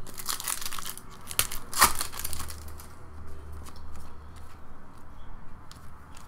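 Trading cards rustling and sliding against one another as they are flipped through by hand, with the crinkle of a torn foil pack wrapper. The rustling is densest in the first two seconds, with one sharp scrape about two seconds in.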